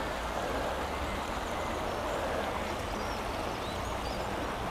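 Steady rush of a fast-flowing river, with wind rumbling on the microphone. A few faint high chirps come and go.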